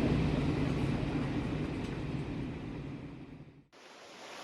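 Steady vehicle rumble that fades out and cuts off sharply near the end.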